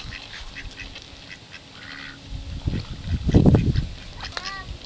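Domestic white ducks quacking in short, repeated calls, with one call gliding in pitch near the end. A louder low rumble swells about halfway through.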